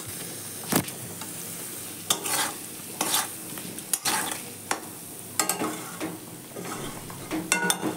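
Spiced potato pieces sizzling in oil in a kadai while a spatula stirs and scrapes them against the pan in short strokes about once a second. The potatoes and masala are being fried down (kosha) until the oil separates.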